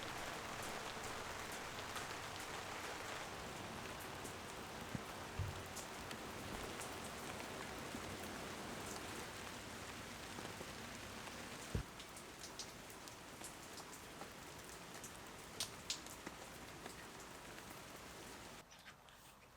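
Steady rain falling, an even hiss with scattered sharp drips and taps; it dips down near the end.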